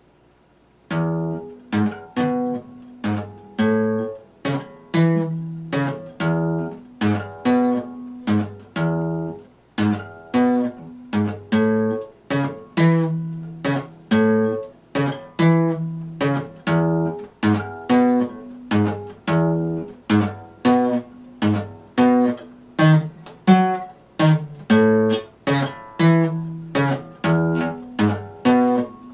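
Epiphone acoustic guitar playing chords in a steady rhythm, starting about a second in, with the chords changing every few strokes.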